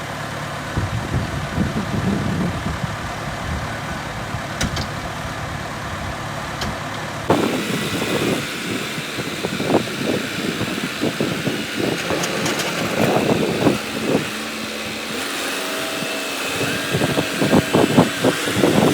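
Tractor engine running steadily. About seven seconds in, its low drone drops away and irregular knocking and clattering takes over.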